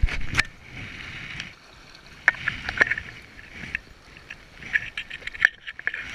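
Running river water, with a scatter of sharp clicks and knocks about half a dozen times.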